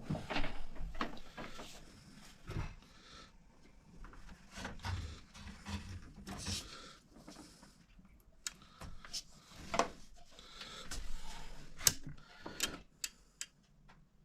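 Irregular clicks, taps and rustles of hands handling a washing machine part and multimeter test probes on a workbench.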